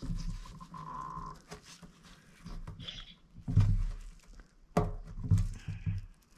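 Fuel pump module being forced by gloved hands into a fuel tank's opening against its greased seal ring, making short squeaks, a sharp knock just before five seconds and a few dull handling thumps; the module is a tight fit and won't seat fully.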